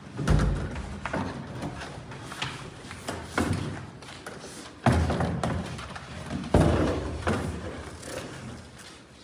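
Skateboards being handled on the deck of a plywood mini ramp: a run of knocks and thuds with a short room echo, the loudest about five and six and a half seconds in.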